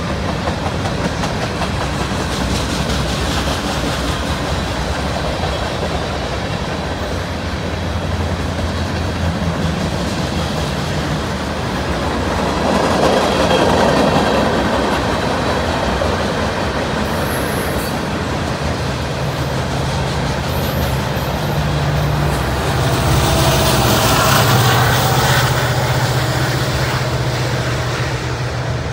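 Freight train cars rolling past at speed, a steady rumble with repeated wheel clicks over the rail. From about two-thirds of the way through, the steady drone of a diesel locomotive's engine builds and peaks as the rear locomotive at the train's tail goes by.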